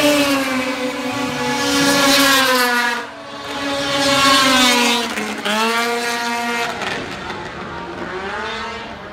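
Several Formula 500 two-stroke race snowmobiles pass one after another at racing speed. Each engine's pitch drops as it goes by.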